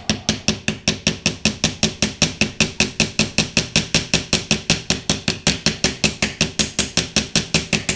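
Small hammer tapping rapidly and evenly on the steel rivet pins of a folding knife, about six taps a second, peening the rivet tails over into heads to hold the liner and frame together.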